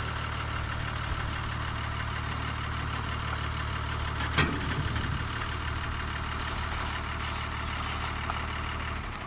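Steady idling engine sound, with one sharp click about four and a half seconds in.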